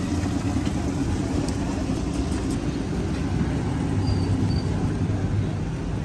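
Steady low rumble of busy street background noise, with a few faint light clicks about one and a half to two and a half seconds in.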